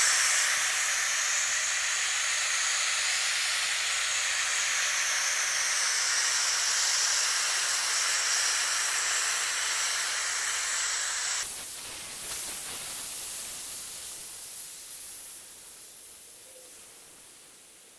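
Steam hissing out of an Instant Pot Duo Evo Plus pressure cooker's steam-release vent during a quick pressure release. It is steady, drops off sharply about two-thirds of the way through, then fades away as the pressure runs out.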